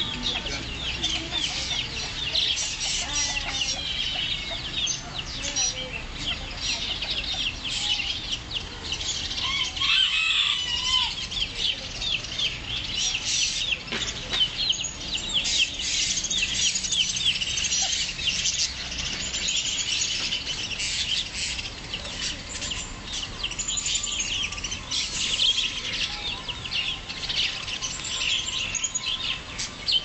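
Chorus of many caged birds chirping continuously, dense and high-pitched, with chickens clucking among them.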